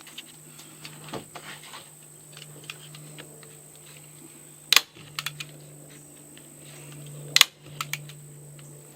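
Staple gun firing staples through vinyl sheet flooring into a plywood floor: a few sharp clacks, the loudest about five seconds in and again about seven seconds in, each followed by one or two smaller clicks, over a steady low hum.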